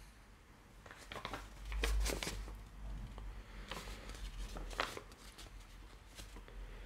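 Quiet room sound with a few short knocks and rustles and a low rumble, loudest about two seconds in.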